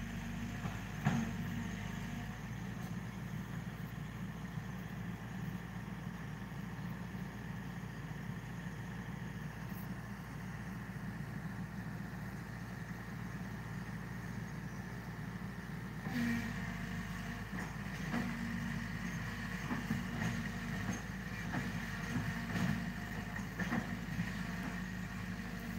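Excavator's diesel engine running steadily, growing louder about two-thirds of the way through, with a few faint knocks.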